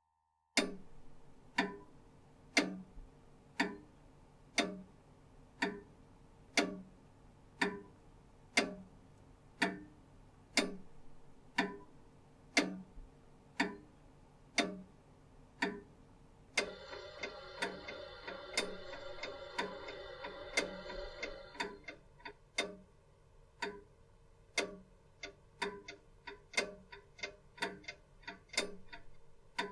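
Regular ticking, a sharp tick about once a second with fainter ticks between. From about 17 to 21 seconds in, a held chord of several steady tones sounds over it. After that the ticks come faster and uneven, about two a second.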